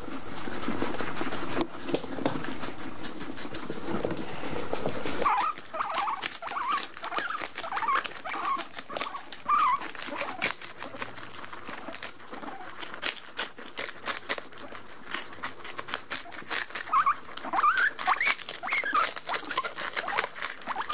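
Several guinea pigs chewing lettuce up close: a rapid run of crisp crunching and tearing clicks, with short squeaks now and then. A steady rustling fills the first five seconds before the chewing.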